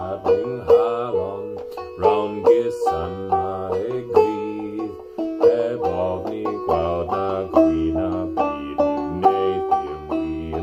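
Banjo played clawhammer style, with its steady rhythmic down-picked strumming, while a man sings a Welsh folk song over it.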